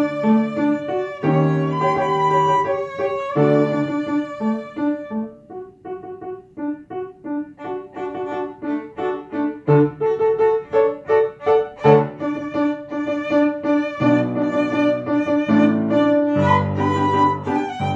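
Violin played with piano accompaniment: a bowed violin melody over piano. About five seconds in it drops to a quieter passage of short, quick notes, then grows fuller again with low piano notes in the last few seconds.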